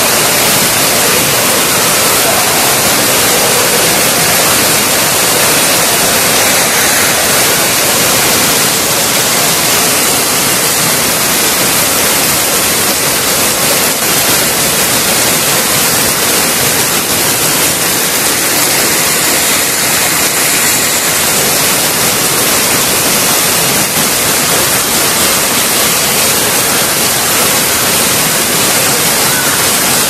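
Waterfall running full, a loud, steady rush of falling water.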